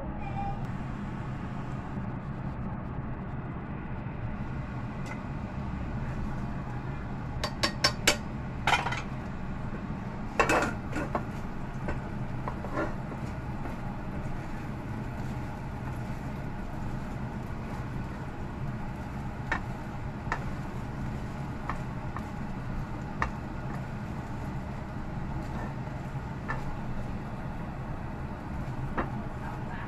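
A silicone spatula working scrambled eggs in a non-stick frying pan, with a quick run of sharp clinks against the pan about eight seconds in, a louder cluster about ten and a half seconds in, and scattered light taps after that. A steady low hum runs underneath.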